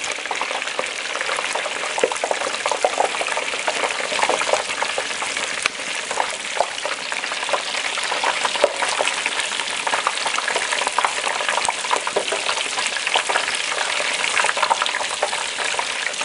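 Hot frying oil at about 400 °F bubbling and sizzling hard around a whole turkey partly lowered into a tall aluminium pot, a steady hiss thick with crackles and pops: the water from the turkey is boiling off in the oil.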